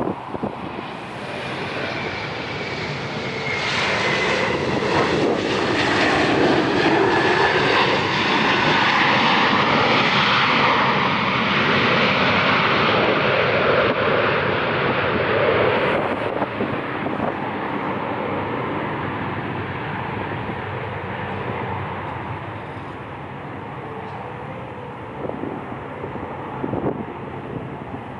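Jet airliner's engines passing close by: the sound swells over a few seconds with a falling whine, stays loud for about ten seconds, drops off sharply about halfway through, then fades slowly.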